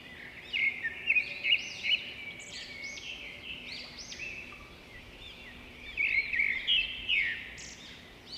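A dense chorus of many small birds chirping at once, with rapid, overlapping, high chirps that swell louder twice.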